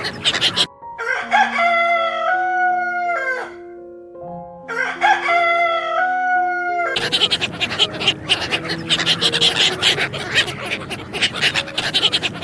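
Rooster crowing twice, each crow a long pitched call of about two to three seconds. Before, between and after the crows runs a dense, busy crackling din.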